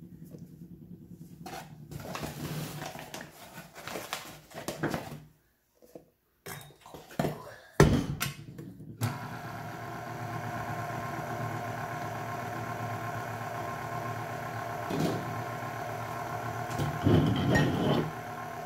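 Scraping and clatter in a stand mixer's steel bowl as flour is worked in, a sharp click about eight seconds in, then the tilt-head stand mixer's motor running steadily with the dough hook kneading bread dough, with a few louder bumps near the end.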